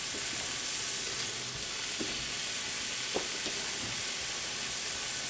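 Cubed ham frying in melted butter in a large pot, a steady high sizzle, with a couple of faint clicks about two and three seconds in.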